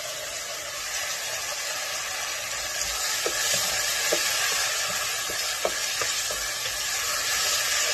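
Wet, freshly washed rice sizzling in hot oil in a pot with browned vermicelli, stirred to coat the grains. The steady sizzle grows louder about three seconds in, with a few light clicks of the spoon against the pot.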